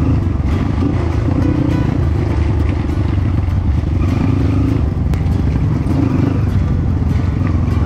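Dirt bike engine running steadily as it is ridden along a muddy trail, with background music playing over it.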